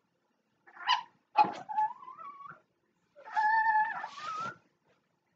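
A dog whining: about three high, wavering whines, each held from a moment to over a second, with short gaps between.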